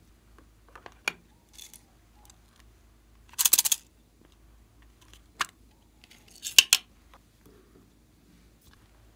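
Small plastic container rattling in two short bursts as star-shaped sprinkles are shaken out of it onto slime, with a few single sharp clicks in between.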